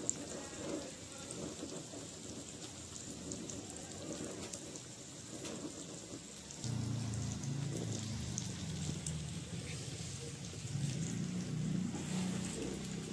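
Fish frying on an iron griddle over a wood fire: a steady crackling sizzle with fine pops. A louder low rumble from the fire joins about seven seconds in.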